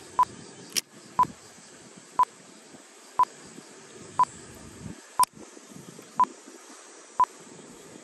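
Short electronic beep at one steady pitch, repeating evenly about once a second, over a low background noise, with a few sharp clicks in between.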